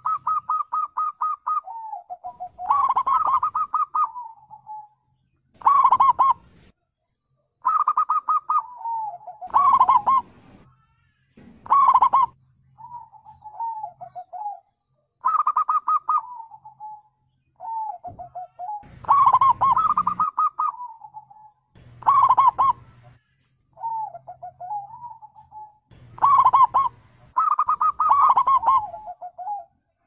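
Zebra doves (perkutut) calling, phrase after phrase. Loud runs of quick staccato coo notes alternate with softer, lower, wavering coos.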